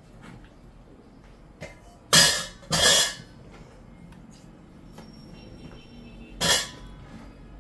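Kitchen knife cutting through a raw potato on a cutting board: three short cuts, two close together about two seconds in and one more near the end.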